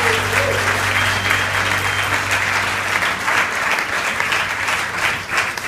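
Audience applauding at the end of a song, with a low sustained note from the band fading out underneath during the first two seconds.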